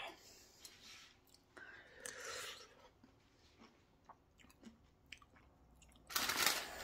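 A person chewing fresh cherries close to the microphone: soft wet clicks and smacks of the mouth. Near the end comes a short, loud burst of noise.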